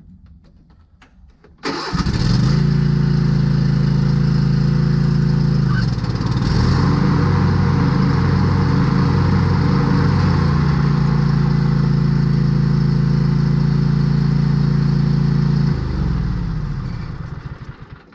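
Craftsman T240 riding mower engine starting at once about two seconds in, running steadily with a brief dip around six seconds, then shut off, winding down and stopping within about two seconds near the end. The run is a test of freshly replaced mower-blade brake pads.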